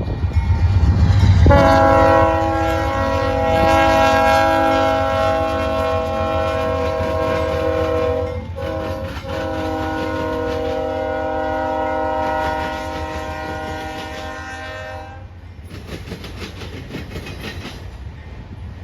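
Union Pacific rebuilt AC6000CW locomotive sounding its multi-chime air horn in two long blasts with a brief break between them, over the low rumble of the passing train. After the horn stops, the wheels clatter over the rail joints.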